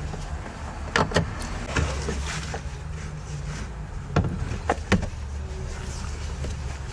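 Handling noises from a car's folding rear seatback and trunk carpet being moved by hand: several sharp knocks and clunks, with rustling of fabric and carpet. A low steady rumble runs underneath.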